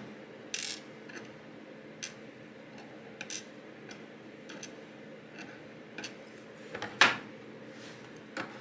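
Small metal pins and tweezers clicking and tapping on a pin tray as the pins from a 6-pin tumbler lock are sorted. The taps come at irregular moments, and the sharpest click falls about seven seconds in.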